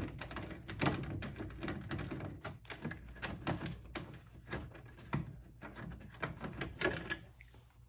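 Irregular small clicks and scrapes of a screwdriver backing a screw out of a third-gen Camaro's plastic interior door trim, fading near the end.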